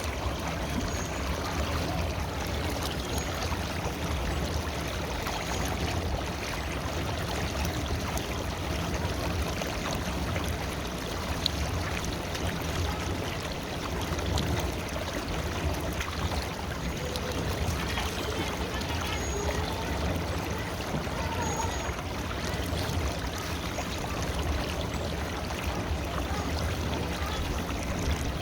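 Flowing river water: a steady rushing, babbling stream.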